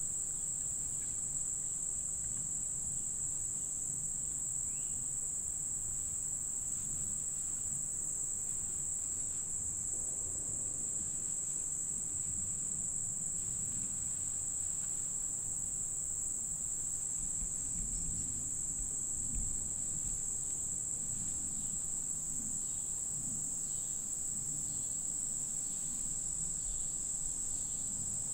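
Insect chorus, such as crickets, singing one steady, unbroken high-pitched note.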